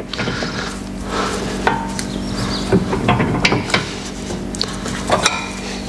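Brembo brake pads being slid by hand into a brake caliper: a scatter of light metal clicks and scrapes as the pad backing plates meet the caliper, over a steady low hum.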